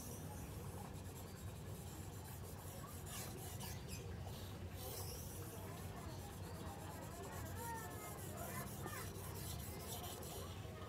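Steel knife blade stroked back and forth on a wet Suehiro 3000-grit Japanese whetstone: a soft, repeated rasping scrape with each pass, as the stone's surface is worked to raise a slurry.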